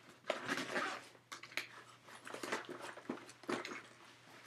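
Rummaging in a soft tackle bag's main compartment: rustling, with a few light clicks and knocks of plastic tackle boxes as one is pulled out.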